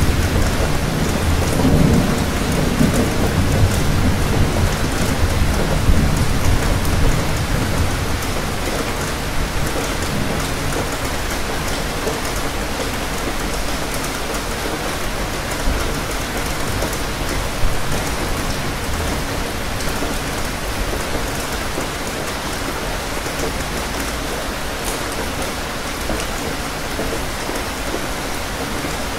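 Steady rain falling, with a low rumble of thunder over the first several seconds that dies away.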